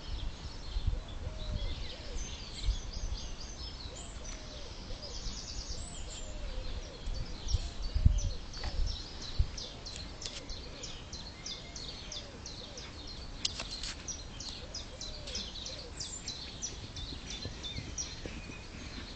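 Small birds chirping and singing, many short high calls one after another throughout, over a low outdoor rumble with a few low thumps, the loudest about halfway through.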